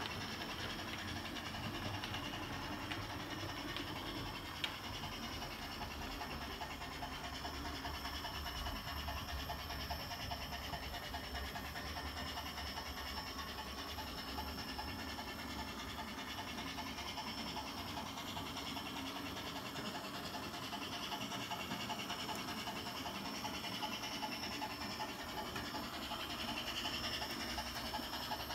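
Brass On3 model Garratt locomotive running along the layout track, a steady running sound with a faint fast rhythm and one sharp click about four and a half seconds in.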